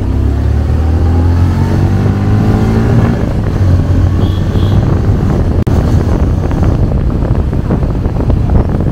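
Motorcycle engine pulling away, its pitch rising over the first three seconds, then running steadily under load while wind rushes over the microphone during the ride.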